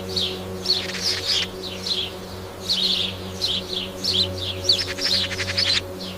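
Small birds chirping busily: many short, high chirps that fall in pitch, several a second, with a quick rattling trill near the end. A low, steady drone sits underneath.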